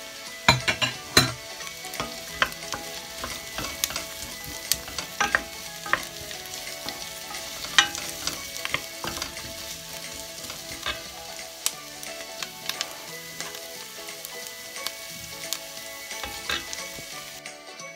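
Carrots, onion and garlic sizzling in hot oil in a stainless steel pot, while a wooden spoon stirs them, scraping and clicking sharply against the pot's sides. The strongest knocks come about a second in.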